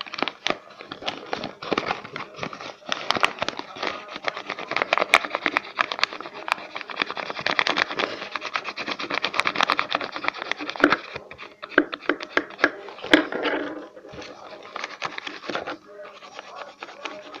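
Folded paper boat handled close to the microphone, with irregular crinkling and rustling of the paper and the scratch of a felt-tip marker colouring on it. Quieter for a moment a little before the end.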